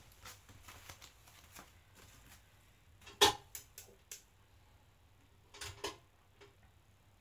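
A room light being switched off, among a few scattered clicks and knocks; the loudest is a single sharp click about three seconds in, with a pair of softer knocks a little before six seconds.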